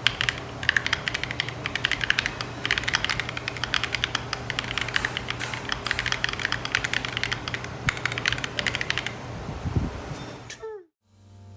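Typing on an Akko ACR Pro Alice Plus mechanical keyboard with stock Akko Crystal linear switches: fast runs of key clacks in bursts with short pauses, stopping about nine seconds in.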